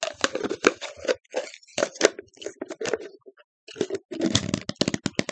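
Candy packaging being handled as candies are slid back into it: irregular scraping, crinkling and clicks, with a short pause a little past the middle.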